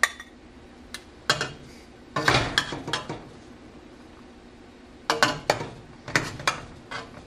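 Metal spoon scraping and clinking against a stainless steel pot and a small metal bowl as cooked buckwheat kasha is spooned from one into the other. The clatter comes in short spells, about a second in, around two to three seconds in, and again from about five to seven seconds, with quiet pauses between.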